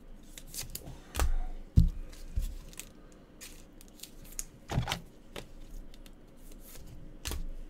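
Gloved hands handling trading cards and rigid plastic top-loaders on a table: scattered light clicks, taps and scrapes, with a few heavier thumps as cards and holders are set down.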